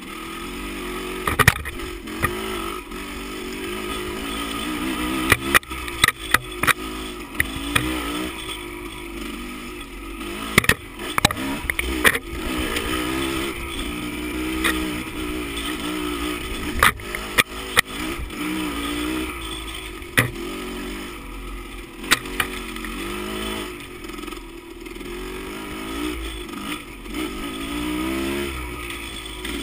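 Dirt bike engine revving up and down under constant throttle changes while riding a rough dirt trail, with frequent sharp knocks and rattles from the bumps.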